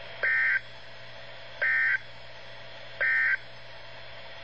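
Emergency Alert System end-of-message data bursts over a radio broadcast: three short, shrill two-tone digital squawks, each about a third of a second and about 1.4 s apart, marking the end of the alert message.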